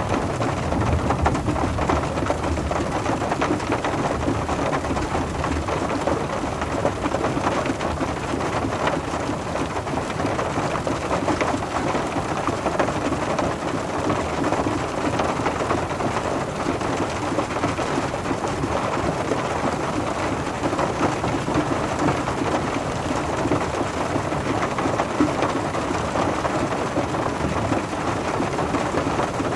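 Rain falling on a car, a steady dense patter of drops on the metal body and glass. A low rumble sits under it, stronger in the first few seconds.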